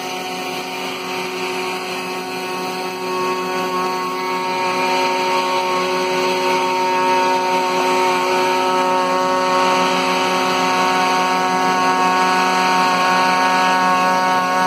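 Maslow CNC router running steadily while its bit cuts a slot through plywood: a constant motor whine over a cutting hiss, getting a little louder about three seconds in.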